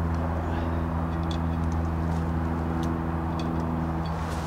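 A machine running with a steady low drone, and a few faint clicks over it.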